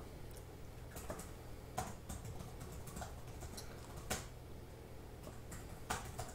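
Computer keyboard typed on in a few irregular, separate clicks, over a low steady hum.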